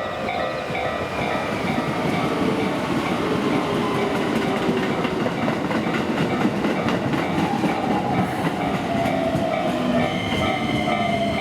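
Railway level-crossing warning bell ringing in a steady repeating rhythm while a train passes through the crossing, its wheels clattering and rumbling loudly over the track. A whine falls in pitch in the last few seconds, and the bell comes through clearly again near the end.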